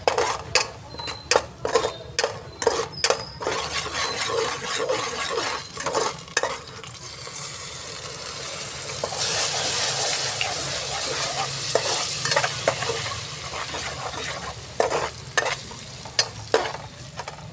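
A metal ladle clinks and scrapes against a wok while the bubbling caramelized sauce sizzles. About nine seconds in, the sizzling swells to a loud hiss for a few seconds. The ladle clinks a few more times near the end.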